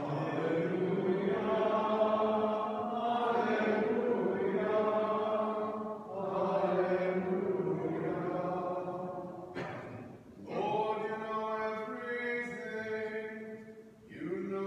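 A single voice chanting unaccompanied in long, held sung phrases, with short breaks about 6, 10 and 14 seconds in.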